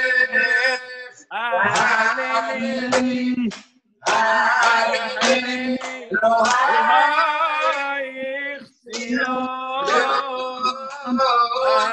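A man singing unaccompanied in long, wavering, ornamented phrases, with brief breaks for breath about a second in, near four seconds and near nine seconds.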